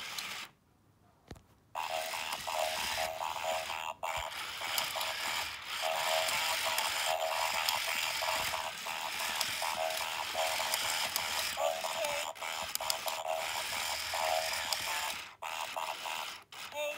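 Two battery-powered toy robots running, with the whirr and clicking of the small gear motors that roll their eyes mixed with tinny electronic sounds from their built-in speakers. The sound drops out briefly about half a second in, then goes on steadily with a few short breaks.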